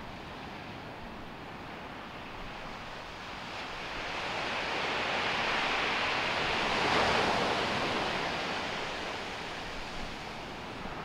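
Ocean surf washing onto a beach: a steady rush of water that builds to a peak about two-thirds of the way through as a small wave breaks near the shore, then eases off.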